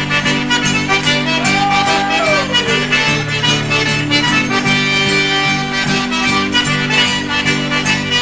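Instrumental background music: a tune with a steady rhythm, its lead notes bending up and down about two seconds in.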